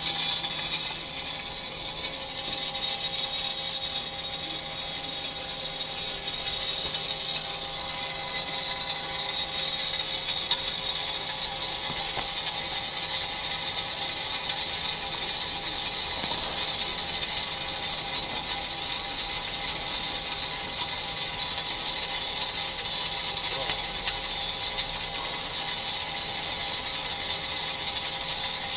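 DBL 3000 on-car brake disc lathe machining a car's brake disc on the hub. The cutting tips skim the spinning disc face with a steady high-pitched scraping hiss over an even motor hum, resurfacing the rotor.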